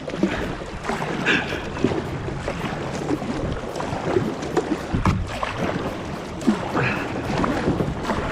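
Kayak paddles dipping and splashing in the water in irregular strokes.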